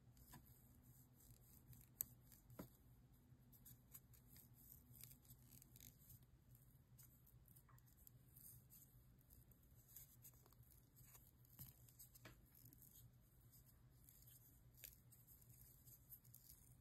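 Faint, irregular clicks and scrapes of a craft knife blade trimming the edge of a small leather cutout, with a sharper click about two seconds in, over a low steady hum.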